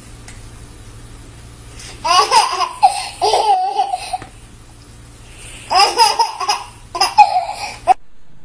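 A baby laughing hard in two bouts, the first about two seconds in and the second near six seconds, cut off suddenly just before the end.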